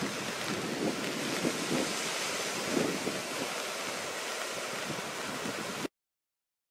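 Shallow surf washing up over sand and pebbles at the water's edge, a steady rushing hiss. It cuts off suddenly near the end.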